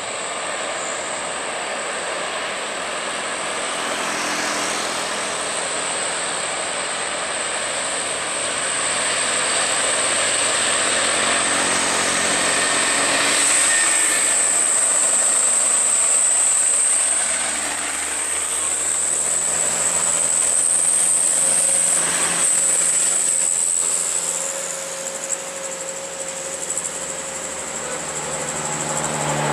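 Diesel trucks, among them a Mitsubishi Canter light truck, driving past one after another, their engine and tyre noise swelling and fading, loudest around the middle. A steady high-pitched whine runs underneath.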